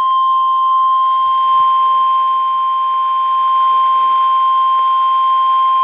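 NOAA Weather Radio 1050 Hz warning alarm tone: one loud, unbroken, steady beep at a single pitch, the attention signal that comes before a severe thunderstorm warning.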